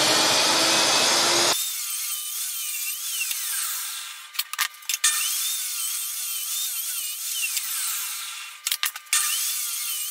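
A power saw spinning up with a rising whine, then cutting wood. After about a second and a half the sound turns thin and high with a wavering whine, broken by two short gaps.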